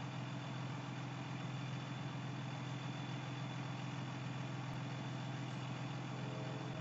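A steady low mechanical hum with a constant pitch over an even hiss.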